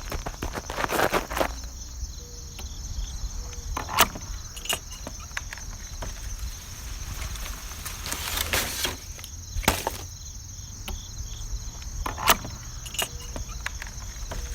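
Steady high-pitched insect chorus, with scattered clicks and a handful of louder knocks or crunches over a low rumble.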